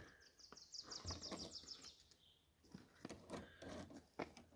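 Faint, high-pitched bird trill, about a dozen quick notes a second for under two seconds near the start. Soft clicks and knocks of wet rock chips being moved in a core tray come through it and after it.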